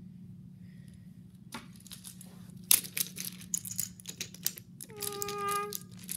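Irregular clicking and clattering of a wooden toy train running over wooden track, starting about a second and a half in, then near the end a steady horn-like tone held for about a second.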